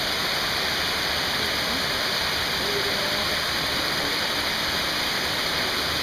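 Waterfall running: a steady, even rush of falling water with no breaks.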